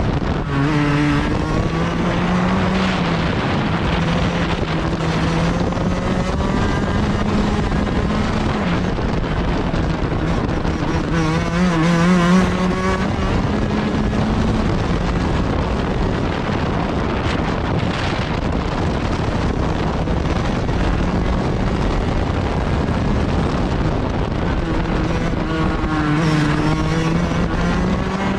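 Go-kart engine heard from on board at racing speed, its pitch dropping into corners about a second in, around twelve seconds and near the end, and climbing again as it accelerates out.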